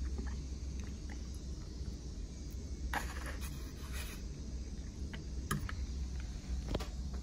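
A metal fork scraping and clicking against a plastic plate a handful of times, over a steady low hum.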